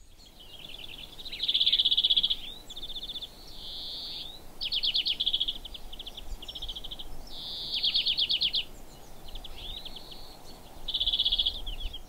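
European greenfinch singing a continuous song of trills and pulsing note sequences, some very fast and some slower with the separate notes audible. A few drawn-out wheezes are mixed in.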